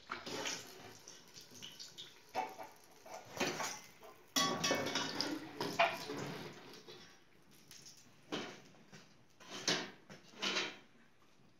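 Cooking sounds of bolani being made and fried: hands handling dough on a wooden board, then a sudden loud sizzle of hot oil about four seconds in that fades over a few seconds, followed by a few short clatters of a metal slotted spoon and pots.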